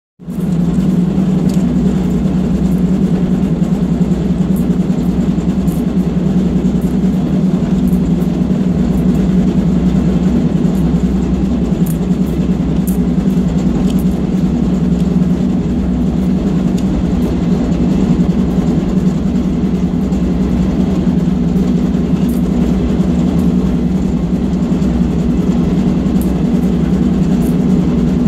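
Diesel locomotive running along the track, heard from inside the cab: a loud, steady low drone with no change in pitch, and a few faint clicks scattered through it.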